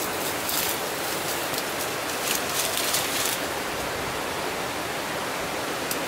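Valley stream water rushing steadily, with a few short rustles in the first half.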